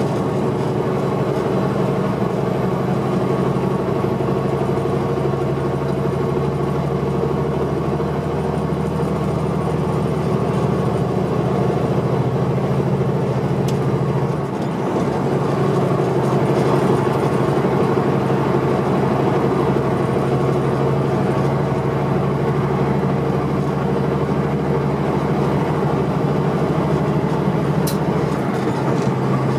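Semi truck's diesel engine heard from inside the cab at highway speed: a steady low drone with road noise. The engine note dips briefly about halfway through, and the lowest note changes near the end as the driver works the gear lever.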